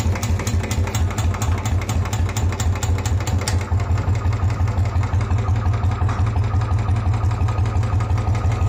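Royal Enfield Bullet 350 Twinspark's single-cylinder four-stroke engine idling through an aftermarket bend-pipe exhaust, a steady, even thump.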